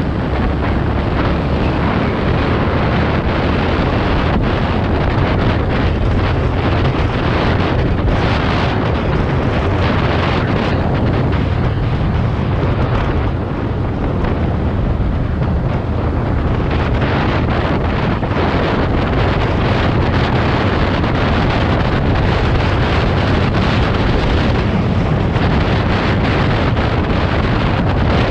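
Wind buffeting the microphone at travelling speed, over the steady noise of a running vehicle and its tyres on the road.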